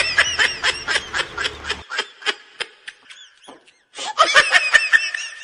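Rapid high-pitched laughter: short syllables that rise and fall, about four or five a second. It thins out and stops briefly a little after three seconds in, then bursts out again near the end.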